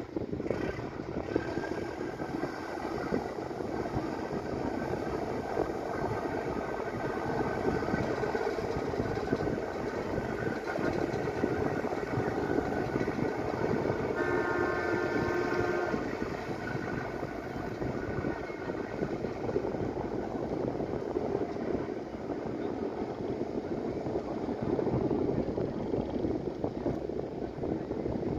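Yanmar 829 hp marine diesel engine of an express riverboat running hard at speed, a steady roar mixed with the rush of its wake. About halfway through, a steady tone sounds for about two seconds over it.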